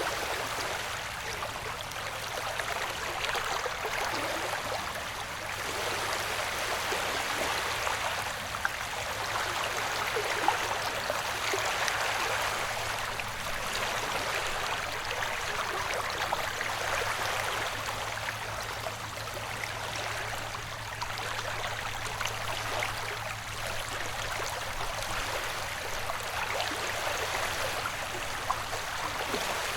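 Ocean-wave white noise: a steady wash of water noise that swells and eases every few seconds, with a faint steady low hum underneath.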